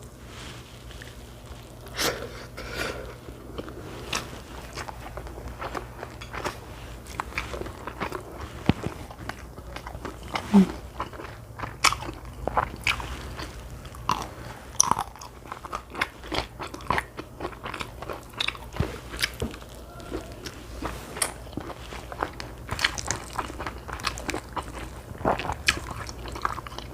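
Close-up eating sounds from a person chewing and biting food, with many short crisp crunches and small clicks at an irregular pace.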